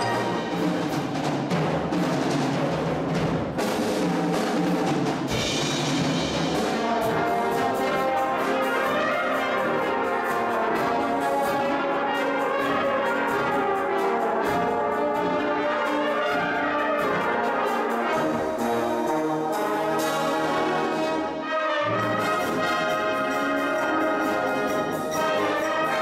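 A brass band playing a piece in full: cornets, euphoniums and tubas in loud sustained chords, with percussion strikes in the first few seconds and a short break in the sound about 21 seconds in.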